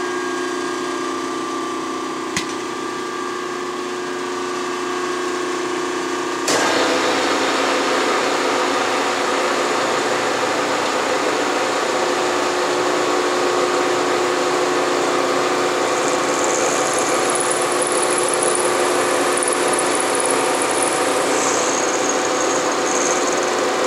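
Bridgeport milling machine spindle running steadily, then about six seconds in the end mill bites into the workpiece and a steady metal-cutting sound takes over as it mills out a relief cut in the dovetail. A thin high whistle joins in over the second half.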